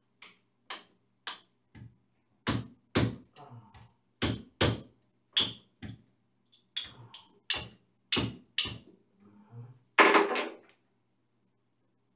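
Hammer tapping repeatedly, about two blows a second at an uneven pace, at a hole in a tiled shower wall, with one longer scraping crunch about ten seconds in.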